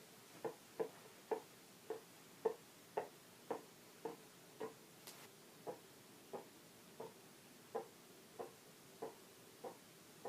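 Soft, faint pops from a vaper's throat and mouth as he pushes out vapor rings (doubles) slowly, about one every half to two-thirds of a second. There is a brief hiss of breath about halfway through.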